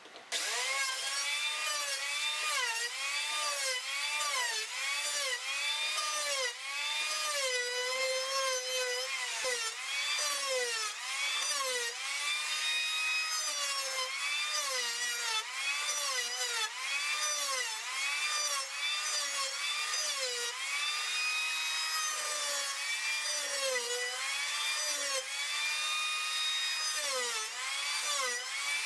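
Electric hand planer starting up just after the beginning and then cutting across an oak slab, planing off excess glue and resin. Its motor whine rises and falls in pitch with each stroke as the blades bite into the wood, about once a second.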